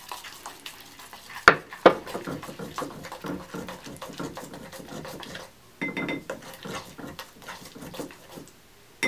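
Plastic knife stirring and scraping wet bentonite clay mixed with apple cider vinegar in a glass bowl, a run of small wet clicks and scrapes against the glass, with two sharp clicks about a second and a half in.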